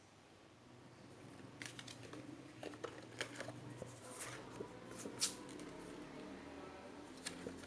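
Album packaging being handled: scattered sharp clicks and short rustles, the loudest about five seconds in, over a faint steady hum.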